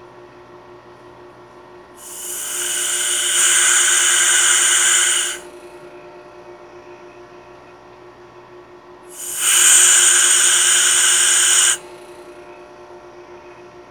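Gas hissing into an evacuated line in two bursts of about three seconds each, the first a couple of seconds in and the second about two-thirds of the way through; the pressure read by the gauges climbs with each burst. A steady low hum runs underneath.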